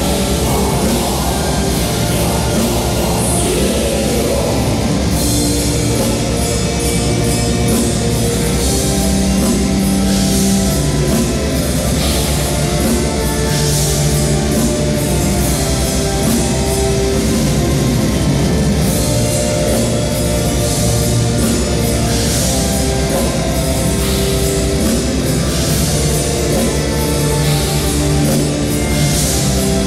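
Heavy metal music: a full band with drum kit and guitars playing loud and continuous.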